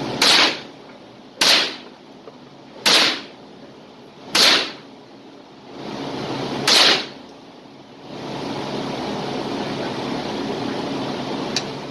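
Five .22 LR rifle shots from a Thompson/Center TCR22 semi-automatic, each a sharp crack. The first four come about a second and a half apart and the fifth follows after a longer gap.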